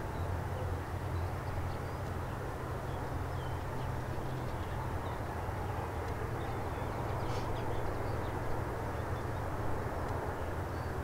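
Boeing 787-9 airliner landing, heard from a distance: a steady jet rumble with a low hum through the touchdown and rollout. Birds chirp faintly over it.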